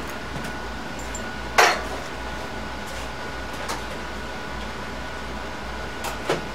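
Metal tools clinking and clanking in a toolbox while someone rummages off to the side: a sharp clank about one and a half seconds in and a lighter one near the end, over a steady shop hum.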